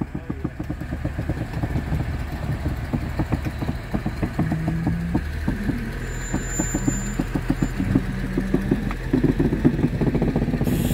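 An engine running steadily with a fast rhythmic clatter, its pitch shifting a little around the middle, as a narrow-gauge steam locomotive is moved slowly along the track.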